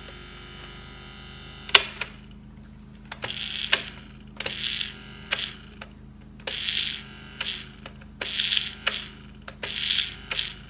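The plastic eye-and-mouth mechanism of an animatronic toy bear being worked by hand: a sharp click, then a run of short scraping rasps, each with clicks, about one every second and a half, over a low steady hum.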